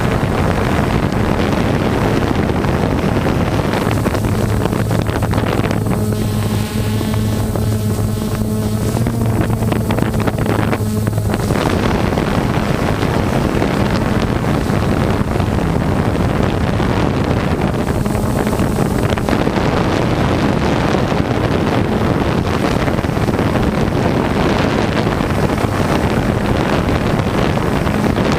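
Heavy wind buffeting the microphone. A steady low hum joins it from about four to eleven seconds in.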